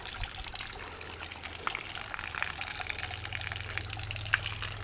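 Stream water splashing and pouring as a cloth T-shirt net is dipped into a shallow stream and lifted out, water draining through the fabric. A sharp tick stands out near the end.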